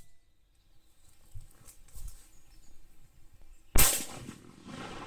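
A single shotgun shot from a Benelli Super Black Eagle 3 semi-automatic fitted with a muzzle brake choke tube, firing a 1.5-ounce load of number 2 shot. It comes about four seconds in and echoes away over the following second. Before it there are a few faint low thumps.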